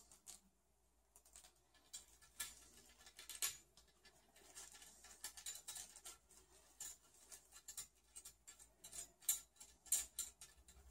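Small clicks, taps and rustles of a low-profile graphics card and its metal slot bracket being handled and fitted by hand, with scattered sharp ticks that come more often in the second half.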